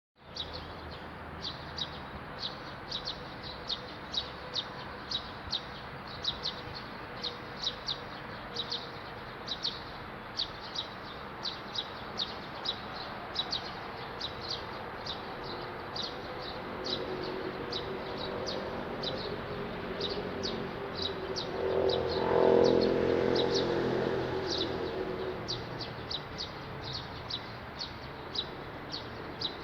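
A bird chirping over and over, short high chirps about twice a second. A vehicle passes in the second half, swelling up and fading, and is the loudest sound about three quarters of the way through.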